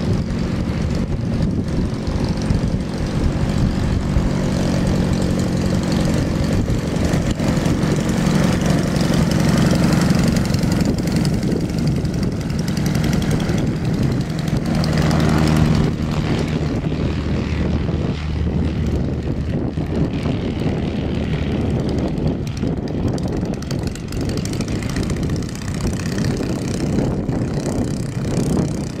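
Half-VW engine and propeller of a Legal Eagle ultralight running at taxi power. It grows louder as the plane passes close about halfway through, and its note drops after it passes and moves away. Wind buffets the microphone throughout.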